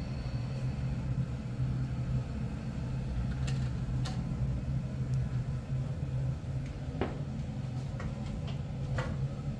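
A steady low mechanical hum, with a few short clicks and knocks as a gas stove is handled, two close together about halfway through and two more near the end.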